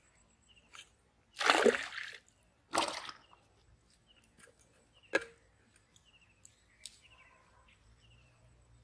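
Pond water splashing and sloshing as it is scooped with a steel bowl: two splashes about a second apart, starting about a second and a half in, then a single sharp knock around five seconds in.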